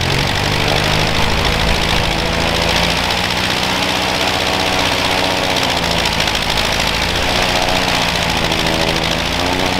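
Zenith CH601XLB's 125-horsepower Franklin engine and propeller idling on the ground, a steady engine drone whose pitch dips slightly a couple of times.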